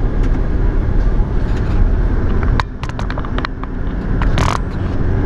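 A car driving, heard from inside: a steady rumble of engine and road noise. Near the middle come a few sharp knocks, and about four and a half seconds in there is a brief hiss.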